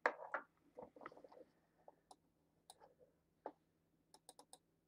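Faint computer mouse clicks while a Google Earth Photo Sphere is navigated: single clicks about two, three and three and a half seconds in, then a quick run of five or six near the end. A short, louder soft noise comes at the very start.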